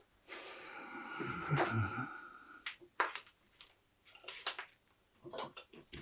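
A breathy hiss that swells and fades over the first two seconds, then a few short, sharp clicks and taps of tools and wire being handled on a workbench.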